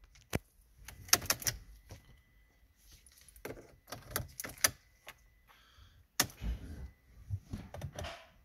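Irregular clicks, taps and light knocks of hands working the car's dashboard controls in the cabin, some in quick clusters, with a heavier thump about six seconds in.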